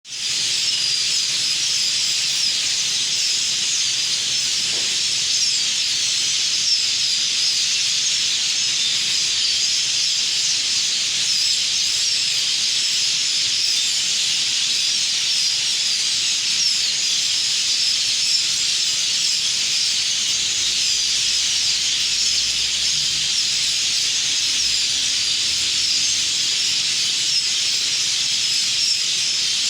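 A huge flock of birds chirping and chattering all at once, a dense continuous high-pitched chorus of countless overlapping calls.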